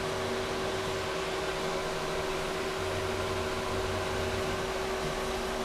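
Steady electrical hum with a whir of fan noise.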